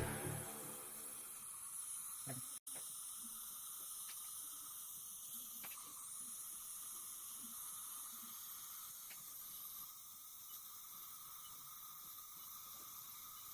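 Faint steady hiss with a few soft ticks.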